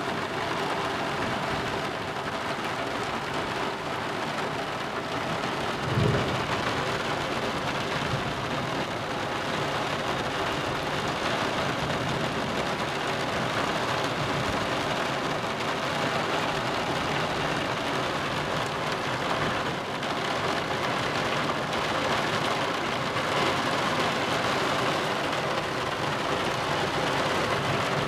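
Steady rain during a thunderstorm, heard through a partly closed roof window, with one brief low thump about six seconds in.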